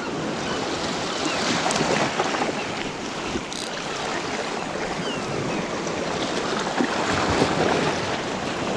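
Sea waves washing against rocks at the water's edge, with strong wind buffeting the microphone; a steady rushing noise that swells a little twice.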